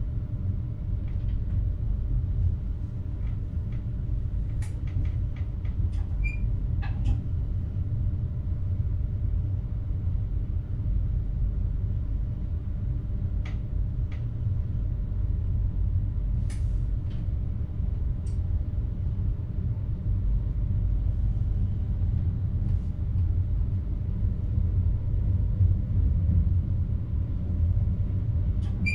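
Steady low rumble of a train heard from inside the driver's cab, with scattered light clicks and a few brief squeaks.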